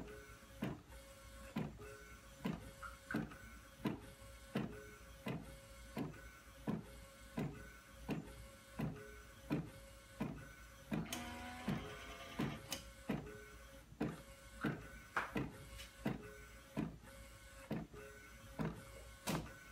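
Direct-to-garment printer printing onto a T-shirt: the print-head carriage shuttles back and forth in an even rhythm of about one and a half passes a second, each pass ending in a short clack. About eleven seconds in there is a brief rising motor whine.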